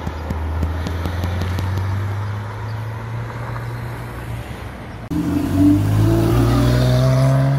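Ferrari 488 Pista's twin-turbo V8 running as the car drives past and away, with a few sharp crackles near the start. About five seconds in the sound changes suddenly to a Porsche 911's flat-six accelerating, its pitch climbing and louder.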